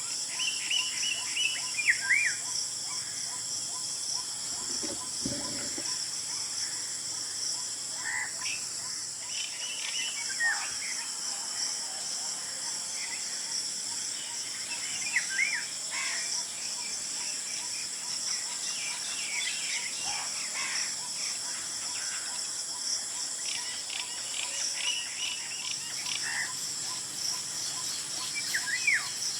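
Golden orioles calling: short whistled phrases and swooping notes come every few seconds. Under them runs a steady, high-pitched drone of insects.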